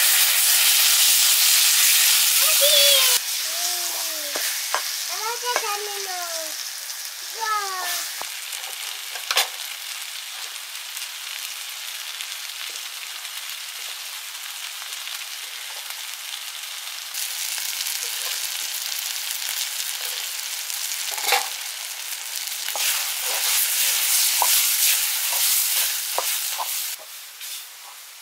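Food sizzling as it fries in a pan, with occasional clicks of stirring. The sizzle is loud for the first three seconds, drops suddenly, swells again later and falls away near the end. A few short sliding calls sound a few seconds in.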